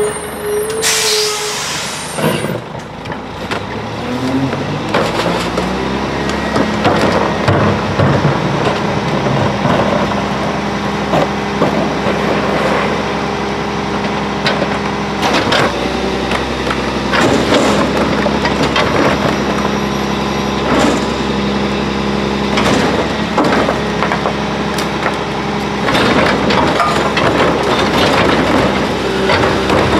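Mack MR McNeilus rear loader garbage truck: a short air brake hiss about a second in, then the engine revs up and holds a steady raised speed, as it does to drive the packer hydraulics. Repeated clanks of garbage carts knocking against the rear hopper as they are tipped in.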